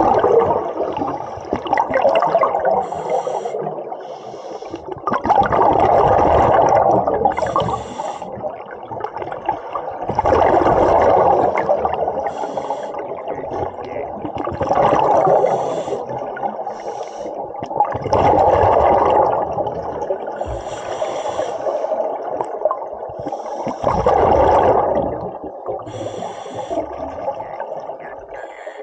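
Scuba diver breathing through a regulator underwater: a thin hiss on each inhale and a loud rush of bubbles on each exhale, about six breaths, one every four to five seconds.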